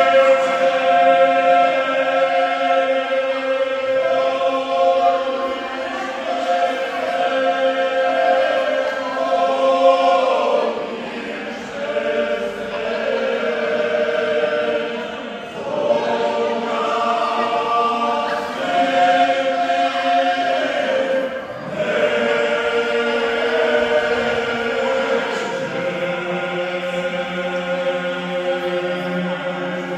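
A group of men singing bećarac, a traditional folk song form, without instruments: several voices together on long held notes, in phrases a few seconds long with short breaks between them.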